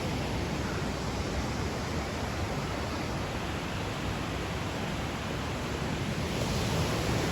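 A big waterfall running: a steady, unbroken rush of falling water that swells slightly near the end.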